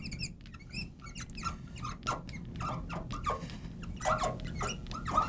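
Marker squeaking on a glass lightboard in short, irregular strokes as a word is written out.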